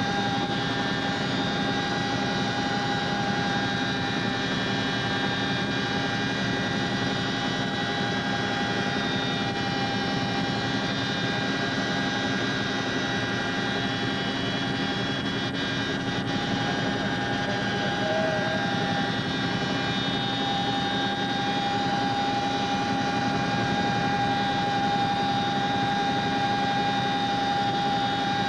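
CH-47 Chinook helicopter in flight heard from inside the cabin with the rear open: the twin turbine engines, rotors and transmissions make a constant loud din with a steady high whine over it.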